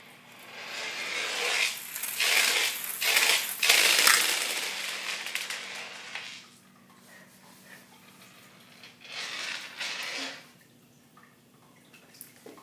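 Marbles rolling and clattering inside a small plastic cup swirled on a tile floor, in two spells: a long one of several seconds that swells in repeated surges, and a shorter one about nine seconds in.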